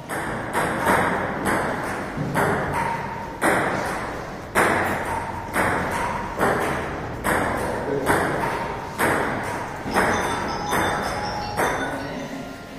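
Table tennis rally: the ball clacking off paddles and table about once or twice a second at an uneven pace, each hit followed by a short echo.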